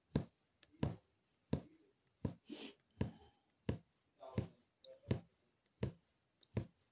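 Punch needle (magic needle) punching yarn through fabric stretched taut on an embroidery frame: a steady series of short pokes, about three every two seconds.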